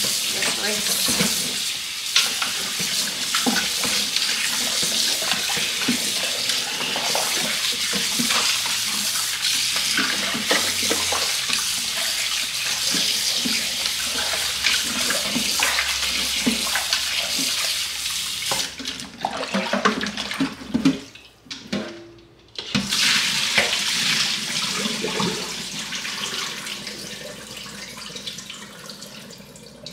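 Kitchen tap running water into a sink with splashing, cut off briefly about 21 seconds in, then running again and fading away near the end.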